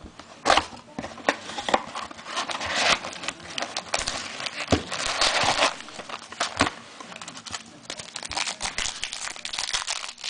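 Crinkling and tearing of a card pack's wrapper as the sealed pack is ripped open and handled, in irregular rustling bursts with sharp crackles.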